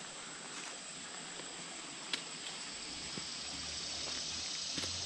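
Quiet outdoor ambience: a steady hiss that swells slightly toward the end, with a sharp click about two seconds in and another near the end.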